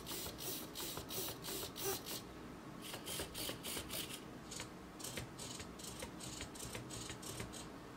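Small hobby RC servos whirring in short bursts as they swing back and forth under stick commands from the radio, about four bursts a second at first, then fewer and briefer ticks in the second half.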